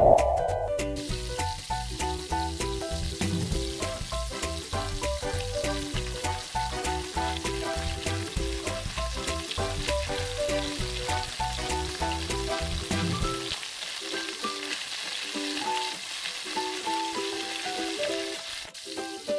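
Lentil-batter vadas deep-frying in hot oil, a steady sizzle starting about a second in, with background music playing underneath.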